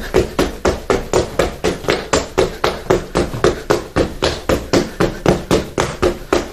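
Quick, steady thuds of trainers landing on the floor during rapid side-to-side jumps, about three landings a second.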